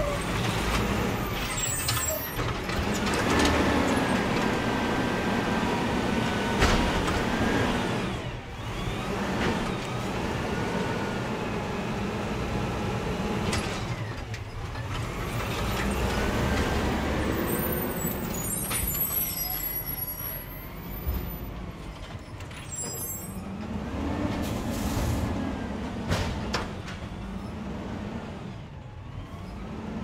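A natural-gas Peterbilt garbage truck stands with its engine running while its hydraulics work in repeated cycles. Each cycle brings a whine that rises and falls in pitch and a swell in loudness, about four times, some six to eight seconds apart. Short sharp hisses of air break in a few times.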